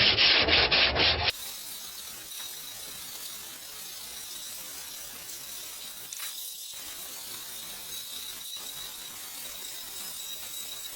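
Rhythmic sanding strokes on body filler on a car's bumper valance, cutting off suddenly about a second in. A faint steady hiss follows.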